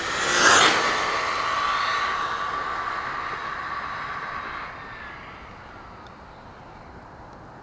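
1/5-scale Redcat Rampage MT RC monster truck running at full speed past the microphone. Its high whine swells, drops in pitch as it goes by about half a second in, then holds steady and fades away over the next four seconds.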